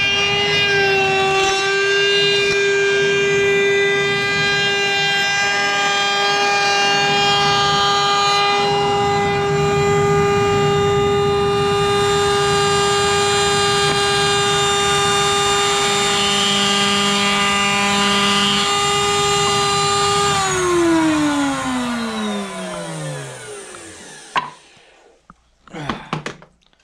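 Benchtop sanding machine running with a steady electric-motor whine, dipping briefly in pitch near the start as the plywood edge is pressed against it. About twenty seconds in it is switched off and winds down, the whine sliding down in pitch and fading over a few seconds, followed by a few light knocks as the workpiece is handled.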